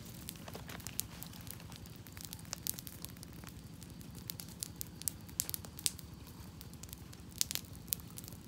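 Open wood campfire crackling, with frequent sharp, irregular pops over a steady low rumble.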